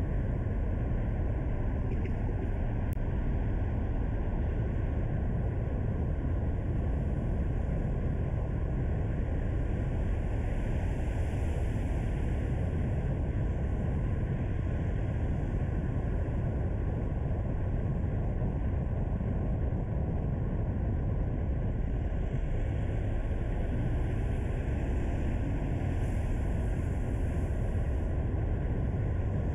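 Car driving on a paved road: steady road, tyre and engine noise, mostly low in pitch, with no changes.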